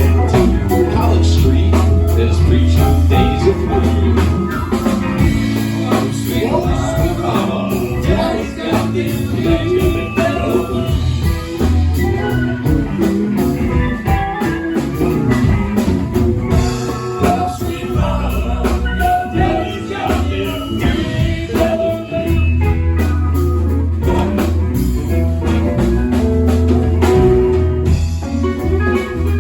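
Live band playing a blues-rock tune: guitar lines over bass and drums, with sung vocals.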